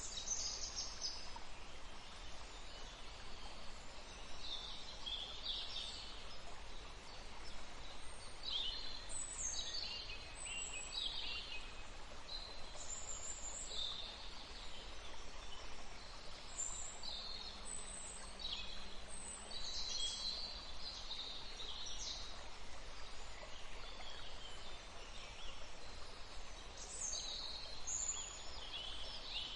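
Many birds chirping and calling in short, high phrases over a steady hiss of flowing water.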